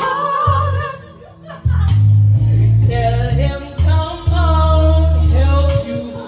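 Background song: a sung vocal over heavy, held bass notes that start and stop. The music thins out briefly about a second in.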